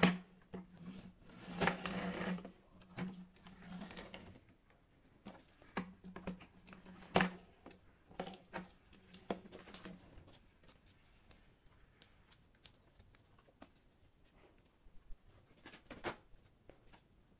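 Hard plastic toy airplanes being set down and slid about on a tabletop by hand: scattered clicks and knocks with brief scraping, the sharpest knocks at the very start and about seven seconds in. A faint low hum stops about ten seconds in.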